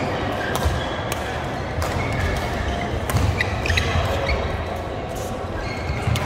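Badminton doubles rally: several sharp racket strikes on the shuttlecock, footsteps thudding on the court, and brief shoe squeaks in the middle, in an echoing sports hall.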